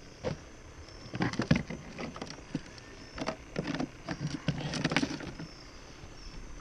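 Irregular knocks, clatters and rubbing of plastic livewell parts being handled: the small pump with its hose and the cooler tank.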